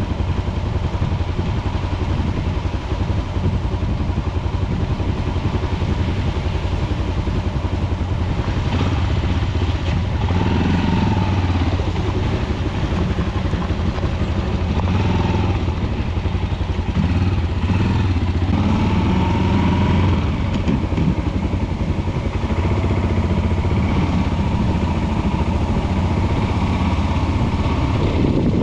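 Motorcycle engine running steadily at an even pitch throughout.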